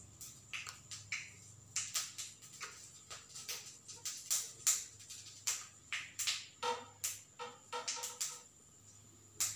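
Faint music in the background, with a pitched passage near the end. Over it come short irregular clicks and wet squishing from soaked urad dal vadas being squeezed out of water by hand.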